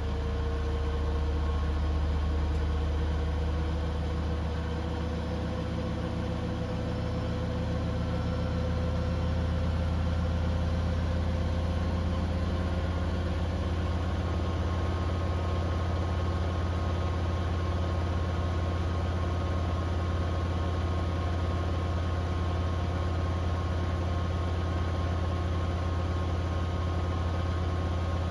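Beko WTK104121W washing machine running its first intermediate spin: a steady low hum from the drum and motor, with a motor whine that rises slowly in pitch over the first dozen seconds as the drum picks up speed.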